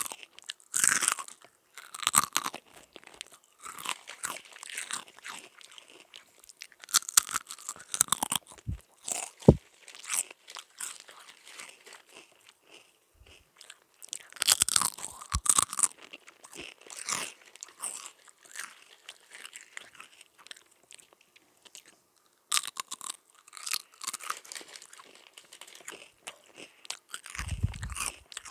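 Close-miked mouth chewing and crunching on Sunbites wholegrain crisps, in irregular clusters of crunches with short pauses between bites. A brief low thump near the end.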